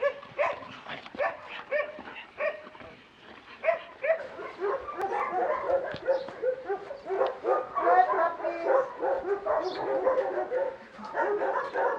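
Many dogs barking and yipping together. The calls are scattered at first, then thicken into a dense, overlapping chorus from about four seconds in.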